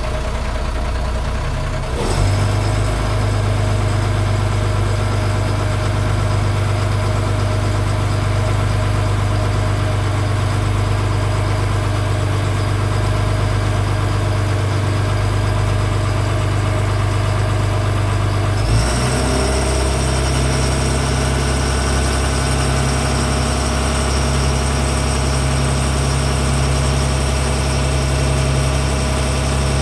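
Twin engines of a 36-foot Wellcraft Coastal boat running steadily; the engine note steps up about two seconds in and shifts again about nineteen seconds in, when a high steady whine joins it. An odd sound is coming from both engines, which the owner wonders may be the turbos.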